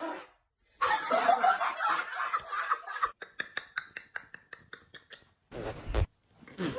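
A person snickering and laughing, then a run of quick clicks, and a short low rumble near the end.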